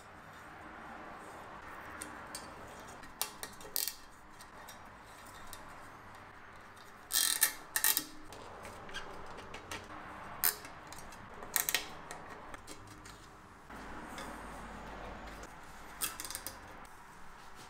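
Plastic zip ties being fed through 3D-printed plastic holders on a bicycle frame tube: scattered short rasps and clicks, the loudest a close pair about seven to eight seconds in.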